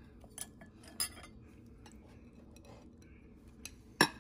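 Metal spoon and white ceramic bowls clinking as sauce is spooned over rice: a few light clinks, then one sharp, louder clink near the end.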